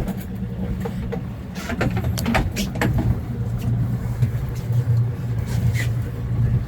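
Fishing boat's engine running with a steady low drone, with a few sharp clicks and knocks about two seconds in.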